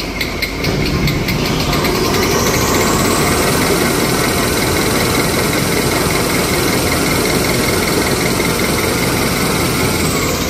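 Glue-lamination toilet paper and kitchen towel rewinding machine running with a steady mechanical noise. A high whine rises in pitch about two seconds in, holds steady, and falls again near the end.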